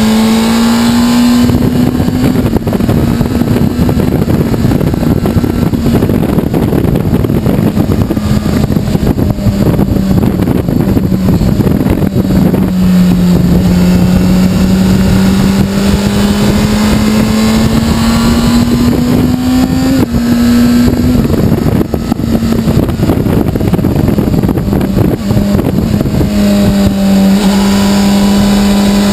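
Honda CBR600RR's inline-four engine running in fourth gear, its note rising and easing with the throttle through the bends, under a heavy rush of wind on the onboard microphone.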